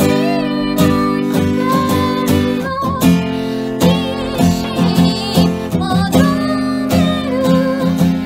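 A woman singing while strumming a steel-string acoustic guitar, with held, wavering sung notes over steady chord strokes.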